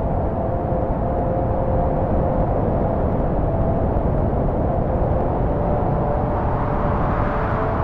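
Steady low rumbling drone with two held mid-pitched tones sounding over it, even in level throughout.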